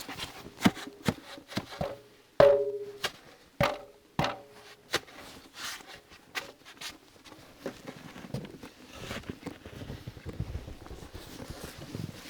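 Handling noises: a series of sharp knocks and clicks, the loudest about two and a half seconds in with a brief ringing tone, then softer rustling.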